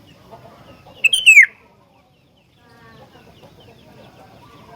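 Sooty-headed bulbul giving one loud, short call that slides down in pitch about a second in, over faint background bird chatter. The chatter drops out briefly just after the call and then resumes.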